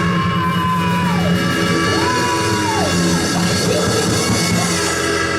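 Church organ holding sustained chords, with a voice hollering long drawn-out tones over it, a held cry about every second or two.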